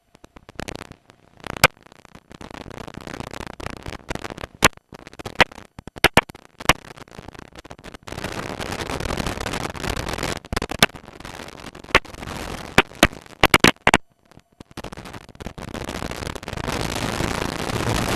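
Open-cockpit wind and engine noise in a Tiger Moth heard through the intercom headset microphone, cutting in and out with many sharp crackling clicks, and running more steadily near the end.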